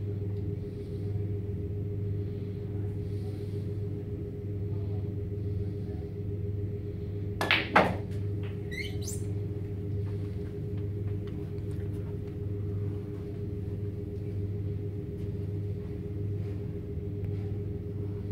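Steady low hum of the room, with two sharp knocks about a third of a second apart a little under halfway through, followed by a brief rising squeak.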